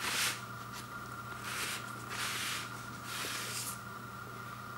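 Rustling of a vinyl LP's shrink wrap and paper inner sleeve as the record is handled and slid out of its jacket: four short swishes, over a steady faint hum.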